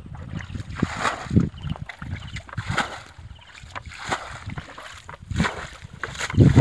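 Muddy water splashing and sloshing as a plastic bucket is dipped into a shallow pool and the water thrown out, in repeated scoops roughly one every second or so: a pool being bailed out by hand.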